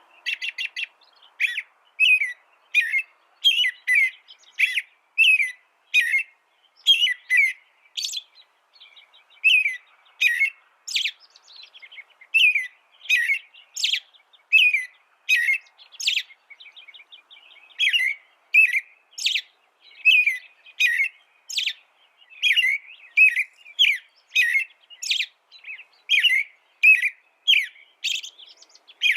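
A small songbird singing a run of short, sharp chirping notes, about one and a half a second, broken twice by a brief fast trill.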